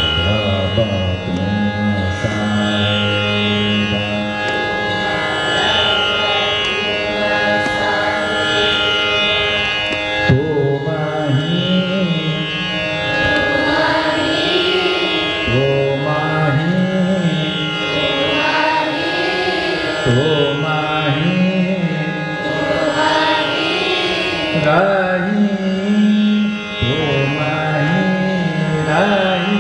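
Male dhrupad vocal: one singer drawing out slow phrases that glide between held notes, with brief breaks between phrases, over a steady tanpura drone.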